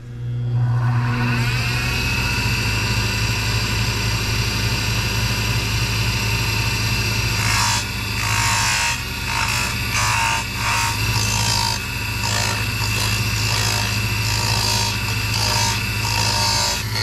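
Small wood lathe's motor switching on, spinning up to speed over a couple of seconds and then running with a steady hum. From about halfway through, a hand-held blade cuts into the spinning wooden popper blank in repeated scraping bursts.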